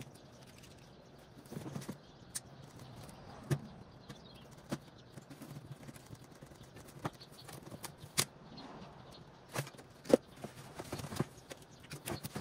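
A cardboard box being opened and unpacked: scattered sharp knocks and taps on the cardboard, with rustling as the flaps are folded back and a cardboard packing insert is pulled out.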